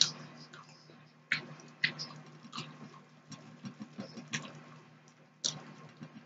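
Steel knife and fork cutting pork steak on a plate: a series of sharp clinks and scrapes of the metal on the plate, about six louder ones with smaller ticks between, over a steady low hum.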